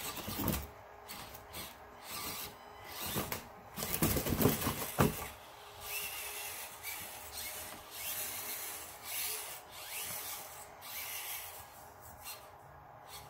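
Axial SCX24 1:24-scale RC crawler driving in short throttle bursts, its small electric motor and gears whirring while its tyres scuff down the styrofoam and across a wooden floor. A sharp knock comes about five seconds in as it drops off the foam onto the floor.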